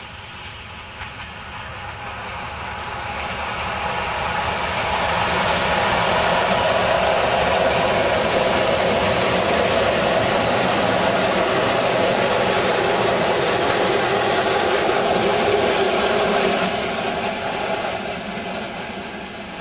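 SU42 diesel locomotive hauling a short passenger train past at close range: the engine and rolling train grow louder over the first six seconds, stay loud for about ten seconds as it goes by, then fade as it pulls away.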